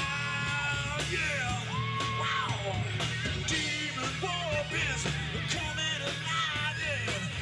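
A live rock band playing a song: a wavering, bending melody line over steady bass and regular drum hits.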